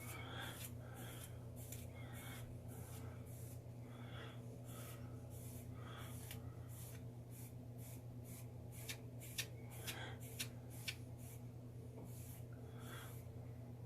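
A comb drawn through a damp, freshly oiled beard: soft, scratchy strokes about twice a second, with a few sharper ticks in the second half.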